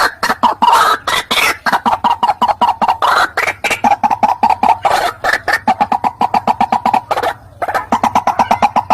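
White-breasted waterhen (ruak-ruak) calling: a fast run of short, harsh clucking notes, about eight a second, with a brief pause near the end.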